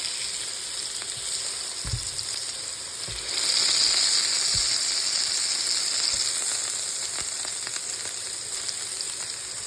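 Beef burger patties sizzling as they fry, the sizzle swelling louder about a third of the way in, just after they are flipped back over. A few soft knocks of the spatula early on.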